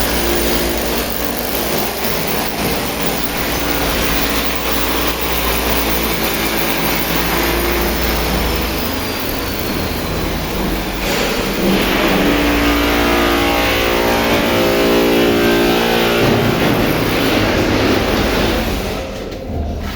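A motor or engine running continuously, growing louder about halfway through and dropping away near the end.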